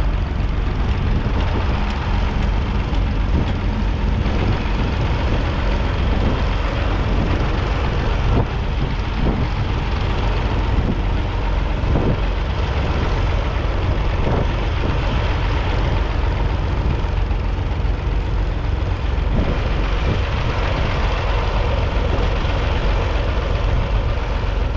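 The 2.5-litre three-cylinder diesel engine of a Massey Ferguson 250 tractor running steadily as it pulls a two-furrow plough.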